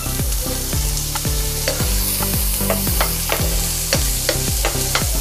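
Chopped onions sizzling in hot oil in a frying pan while a spatula stirs them, scraping and tapping against the pan about three times a second. A low steady hum runs underneath.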